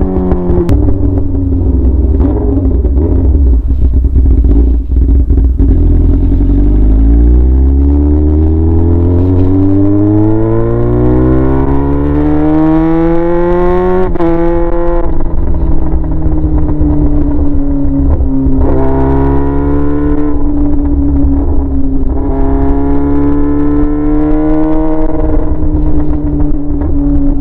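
Yamaha R6's inline-four engine running straight-piped with no muffler while riding: the engine note climbs steadily for several seconds under acceleration, drops sharply about halfway through, then holds a fairly steady pitch with two mild rises and falls.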